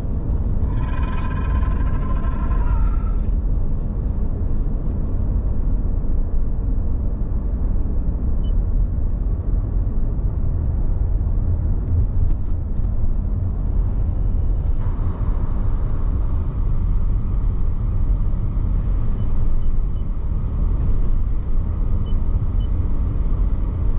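Steady low rumble of a car's engine and tyres heard from inside the cabin while driving. About a second in, a high held tone with overtones sounds for roughly two seconds, and around fifteen seconds in the hiss briefly swells.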